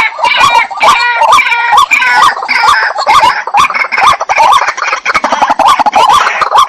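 Waterhen calling: a fast, unbroken string of short, harsh repeated notes, several a second.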